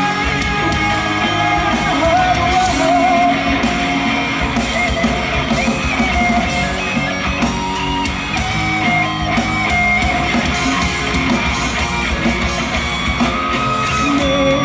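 Live rock band playing an instrumental passage between vocal lines: guitars holding and bending notes over a steady drum beat.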